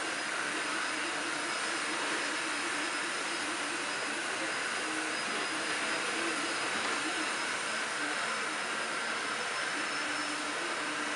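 Pro Avatar III dual-extrusion 3D printer at work: its cooling fans give a steady whirring hiss with a faint high whine, and the stepper motors add short, changing low tones as the print head moves.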